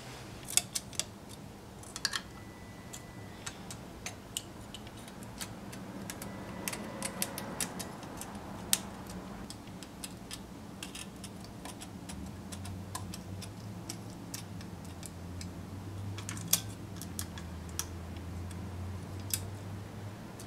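Scattered light metallic clicks and ticks of a feeler gauge blade tapping and sliding under a machinist's steel straight edge laid across an engine block's deck, checking the deck for warpage. A faint low hum comes in partway through.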